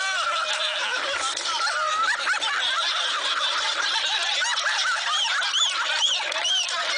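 A group of people laughing and chattering over one another, with higher-pitched squeals of laughter a little after the middle. The sound is thin, with little low end.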